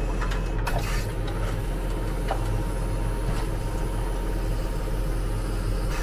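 Tractor engine running steadily, heard from inside the cab, while the hydraulics turn a mounted reversible plough over.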